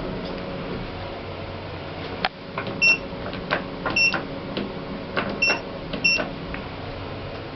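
Schindler lift push buttons being pressed: a run of sharp clicks from about two seconds in, four of them answered by a short high electronic beep, over the steady hum of the lift car.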